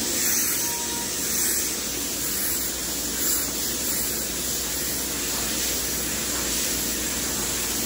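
Compressed-air blow gun hissing steadily, blowing sawdust out of the routed grooves of a wood sheet.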